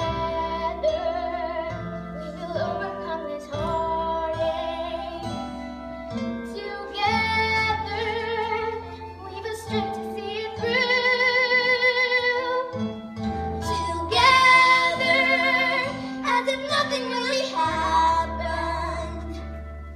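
Musical-theatre song: a sung vocal line over instrumental accompaniment, with long wavering notes held about halfway through and again a little later.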